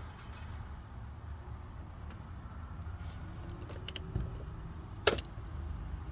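Metal clicks and clinks of the sensor socket and the loosened oxygen sensor as it is unscrewed from the exhaust, with one sharp click about five seconds in, over a steady low rumble.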